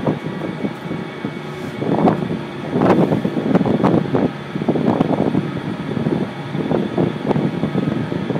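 Wind buffeting the microphone in irregular gusts, with a boat engine running steadily underneath.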